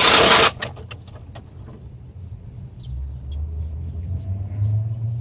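A cordless power driver spins for about half a second at the start, backing a screw out of the metal relay bar in a pool equipment control panel, followed by a few faint clicks of handling. From about three seconds in, a low steady rumble builds and is loudest near the end.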